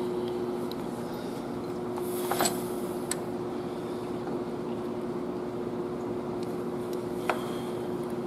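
A few light metallic clicks and clinks from the rocker arms and rocker shaft of a Cummins ISX cylinder head being handled and seated, the loudest about two and a half seconds in, over a steady shop hum.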